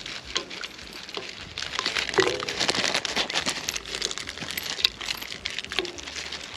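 Paper wrapper crinkling as crushed piloncillo (panocha) is shaken out of it, with small pieces dropping into a steel pot of water to dissolve into syrup. Many small rustles and clicks, busiest in the middle.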